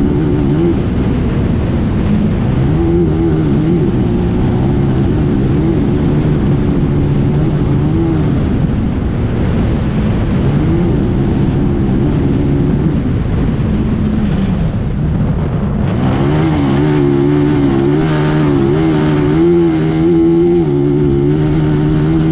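Off-road racing buggy's engine, heard from on board at racing speed, its pitch rising and falling as the throttle is worked, over a steady rush of wind and track noise. About two-thirds of the way in the engine pulls harder and gets louder.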